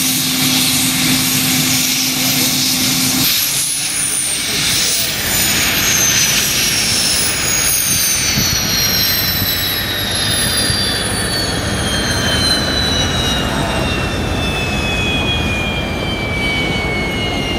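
A US Navy H-60 helicopter's turbine engines winding down after shutdown: a steady low hum cuts off about three seconds in, then several high whines fall slowly in pitch over a steady rushing noise.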